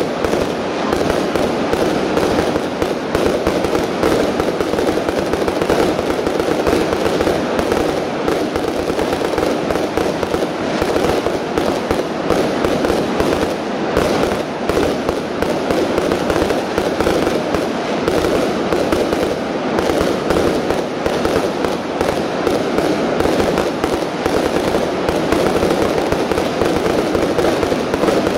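Professional aerial fireworks bursting in a continuous, unbroken barrage, many sharp reports a second, with no pause.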